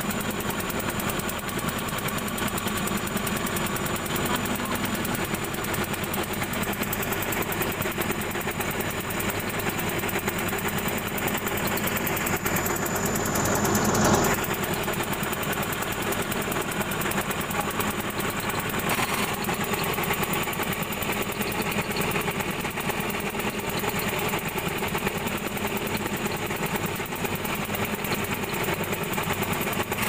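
Kubota combine harvester's diesel engine running hard with a fast, steady clatter while the machine is bogged in deep mud. It swells louder to a peak about halfway through, then settles back to its steady running.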